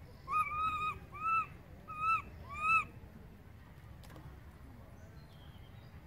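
Baby macaque giving four high, arched coo cries in quick succession, the first the longest: distress calls for its absent mother.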